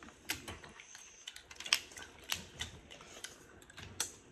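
Crawfish shells being cracked and peeled by hand: a run of irregular sharp clicks and crackles, with one louder crack about halfway through.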